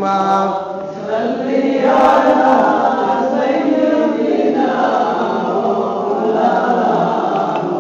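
Many voices chanting an Arabic prayer together in unison, opening with 'Allahumma', blended like a choir.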